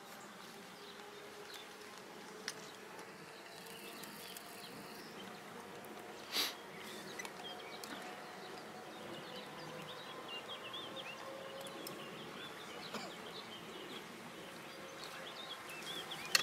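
Quiet rural outdoor ambience: faint insect buzzing, short high chirps and scattered light clicks, with one brief louder noise about six seconds in.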